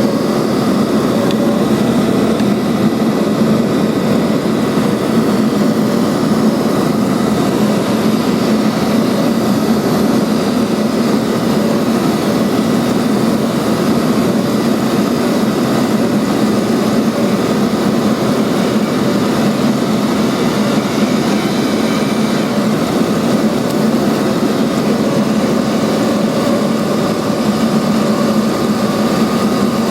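Neato XV-21 robot vacuum running, heard close up from on top of the machine: a steady motor and fan drone with a low hum.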